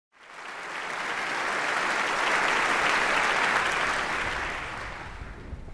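Audience applauding, the clapping building over the first three seconds or so and then dying away near the end.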